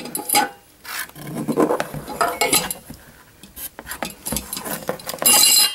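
Ceiling fan parts being handled: the metal down rod and ball joint clinking and scraping against the plastic canopy as the ball joint is slid on, with a louder clatter near the end.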